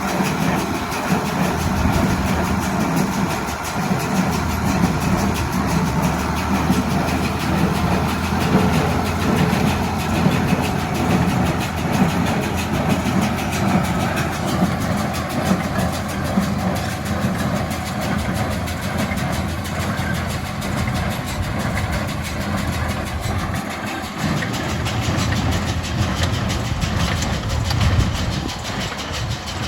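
Tractor engine running steadily while driving a John Deere baler.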